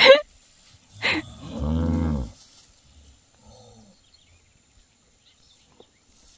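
A cow lowing once: a low, drawn-out moo lasting about a second, starting about a second and a half in.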